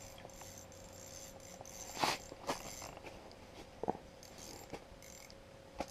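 A few scattered soft clicks and knocks over a faint steady hum.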